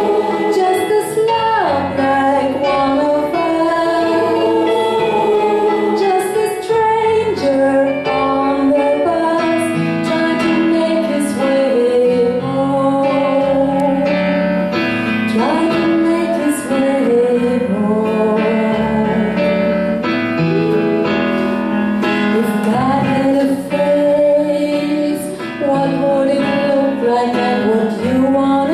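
A choir singing with female voices prominent, with instrumental accompaniment.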